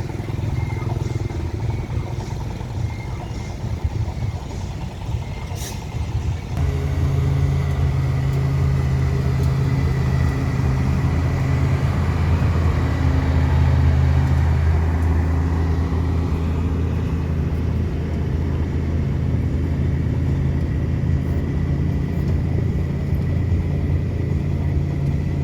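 Truck-crane diesel engine running steadily under load, with a steady low drone that steps up abruptly and gets louder about six and a half seconds in.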